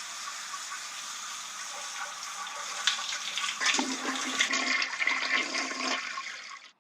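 Rushing water, starting suddenly and dying away near the end.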